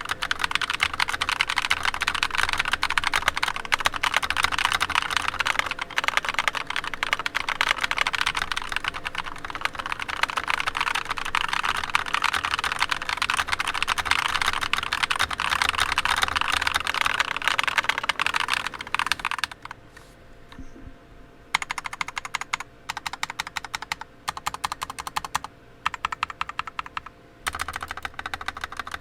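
Mechanical keyboard with stock, unlubed Akko CS Rose Red linear switches being typed on fast, a dense run of keystrokes. About two-thirds of the way through the typing stops, and after a short pause the keystrokes come back in separate bursts with brief gaps between them.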